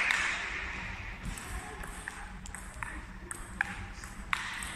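Table tennis rally: the celluloid-type plastic ball ticking back and forth, a string of sharp clicks of ball on bats and table, roughly every half second.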